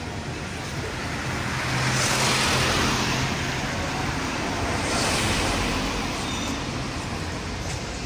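Street traffic: cars passing on the road, one swelling up and fading about two seconds in and another around five seconds, over a steady traffic hum.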